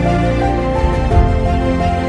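Background music: a melody of held notes stepping from pitch to pitch over a steady low accompaniment.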